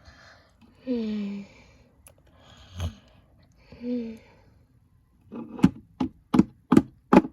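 A child's voice gives two soft sighs with falling pitch, acting out a toy pet asleep. Then, from about two-thirds of the way in, come about seven sharp, even taps on a hard surface, roughly three a second, as toy figures are knocked or stepped along.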